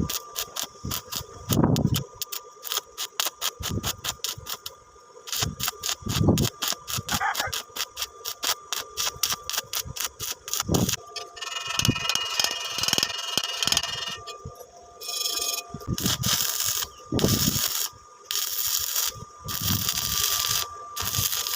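Arc welding on iron in many short, rapid bursts, each start of the arc a sharp crackling click several times a second, with a denser stretch of steady crackle near the middle and a faint steady whine underneath.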